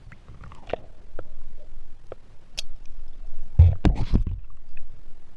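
Muffled thumps, clicks and scraping picked up by a camera held underwater as it is handled, with a cluster of heavier low thumps about three and a half seconds in.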